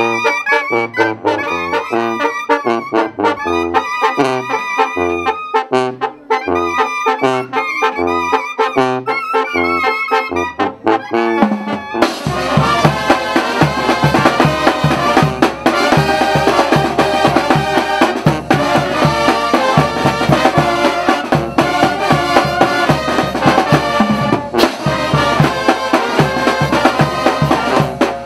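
Brass band music: trumpets and trombones playing a melody over a bass line stepping in a steady rhythm. About twelve seconds in it cuts abruptly to a fuller, denser band sound with percussion.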